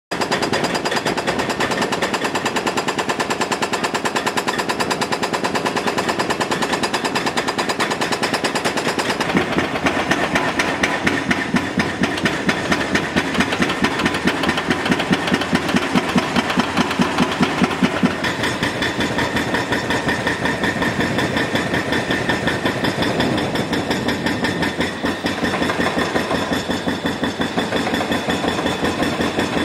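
Hydraulic breaker on a Caterpillar excavator hammering concrete, a fast, even run of blows over the excavator's diesel engine. The hammering shifts in tone about nine and eighteen seconds in.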